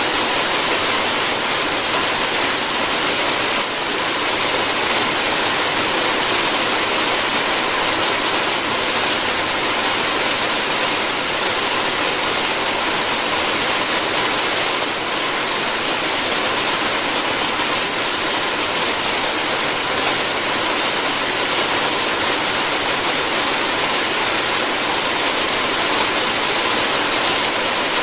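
Steady rain falling on a roof, an even hiss of drops with no breaks.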